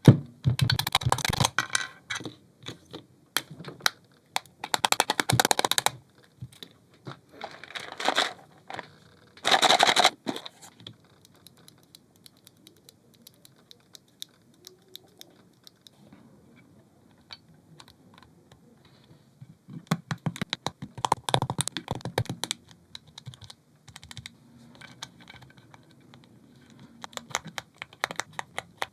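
EPOMAKER V21 mechanical keyboard being typed on. Several bursts of fast key clacks come in the first ten seconds, sparse faint single clicks follow, and there are more fast runs about two-thirds through and near the end.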